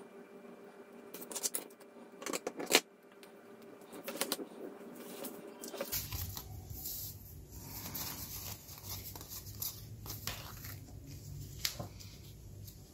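Book-page paper pockets and cut-outs being handled and rustled, with several sharp taps on the table, the loudest a little under three seconds in. A low steady hum comes in about six seconds in.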